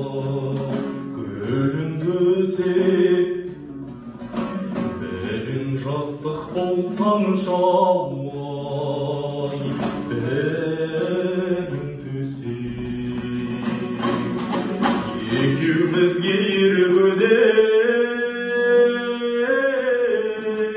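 A young man singing with his own dombra accompaniment, strumming the two strings under long held vocal notes.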